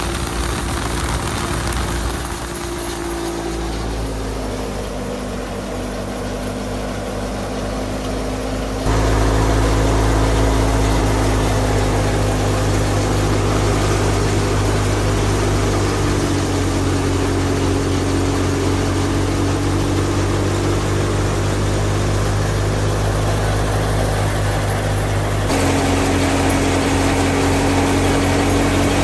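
Fiat 480 tractor's three-cylinder diesel engine running steadily while driving a wheat thresher: a continuous mechanical drone. Its pitch and loudness shift abruptly a few times, and it is loudest from about nine seconds in.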